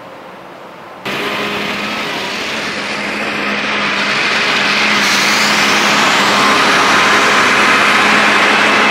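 Small cargo truck's engine running as it drives up close and passes, towing a trailer. The sound steps up abruptly about a second in, then grows steadily louder as the truck nears.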